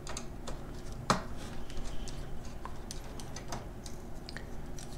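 Small clicks and ticks of a Phillips screwdriver working screws out of a graphics card's metal backplate, with one sharper click about a second in.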